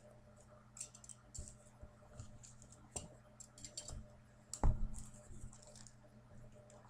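Hands opening a cardboard phone box and handling its packaging: scattered light clicks and rustles, with one louder thump a little past halfway.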